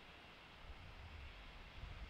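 Near silence: the faint low rumble of a distant narrow-gauge steam locomotive approaching, growing a little from about half a second in, over a steady hiss.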